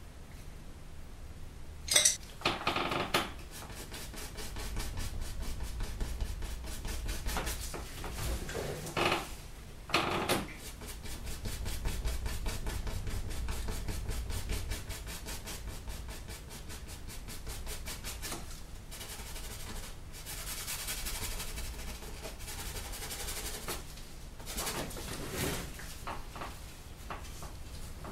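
Paintbrush scrubbing oil paint onto stretched canvas in quick, even back-and-forth strokes, several a second, then a longer steady swishing. A few sharp clicks and knocks, like the brush tapping against the palette or a jar, come now and then.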